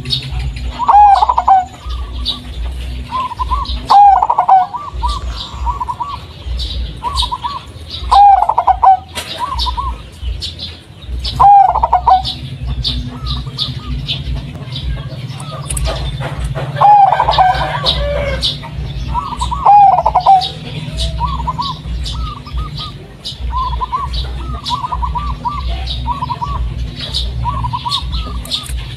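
Zebra dove (perkutut) of the local Blorok Madu type singing its cooing song, a phrase every few seconds with quieter coos between. Short high chirps run through it, over a steady low hum.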